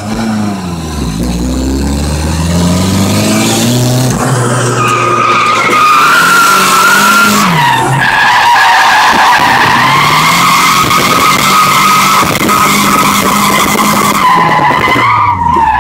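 Drift car heard from inside its cabin: the engine revs climb and drop repeatedly with the throttle, and from about five seconds in the tyres squeal steadily through a long slide.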